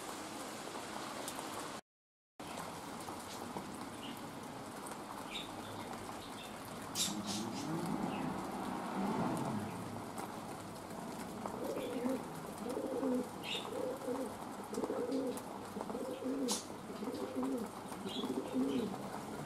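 City pigeon cooing: a drawn-out coo about seven seconds in, then a run of about seven short coos, roughly one a second. Underneath, rain falls steadily with scattered sharp drip clicks.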